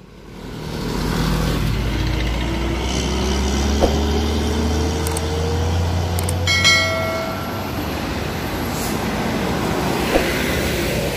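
Hino SG260TI truck's six-cylinder turbodiesel pulling away under a heavy load, its engine note climbing as it accelerates. A brief high tone sounds about two-thirds of the way through, and lighter traffic noise follows.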